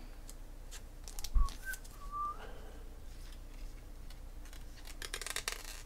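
Quiet handling of a trading card: faint clicks, and a soft thump about a second and a half in. A brief whistle-like tone bends up and down around two seconds in, and a quick run of rustling clicks comes near the end.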